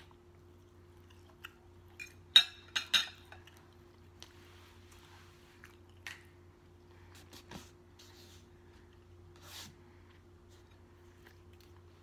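A metal fork clinking down against a ceramic dinner plate: a quick cluster of sharp clinks about two and a half to three seconds in. After that come scattered small clicks of closed-mouth chewing over a low, steady hum.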